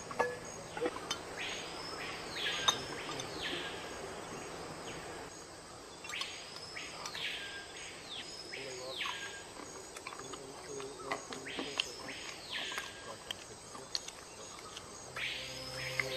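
A forest bird calling repeatedly, each call a note that rises and then falls, coming in groups of two or three, over a background of rainforest birds and insects. A few sharp clicks stand out, the loudest near the start.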